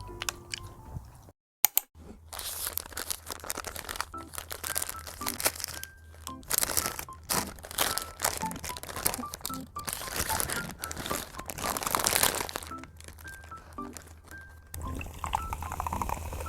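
Close-up crunching of crisp food being bitten and chewed, dense and irregular for most of the stretch, then dying away near the end. Light background music plays throughout.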